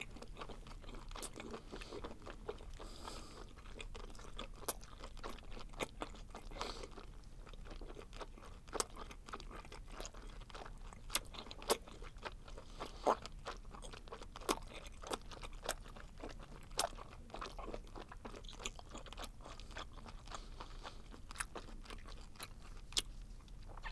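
Close-miked chewing of spicy stir-fried webfoot octopus (jjukkumi), a steady run of many small wet clicks from the mouth.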